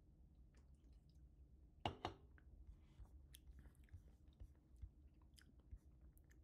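Near silence: low room tone with faint scattered clicks, and a sharper double click about two seconds in.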